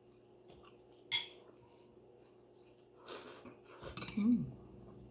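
Metal spoon clinking and scraping against a ceramic plate while eating, in a cluster of clicks and scrapes a few seconds in, after a single sharp click about a second in. A short low hum-like sound rises and falls near the end.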